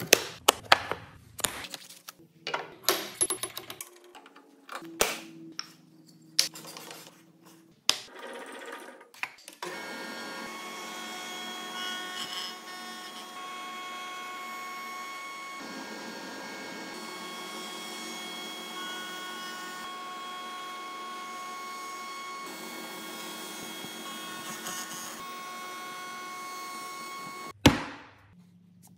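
Clicks and knocks of a plastic bit case and a router bit being handled, then a table-mounted router running steadily for about eighteen seconds with a constant whine, a board being fed past its Roman ogee bit, before it cuts off suddenly.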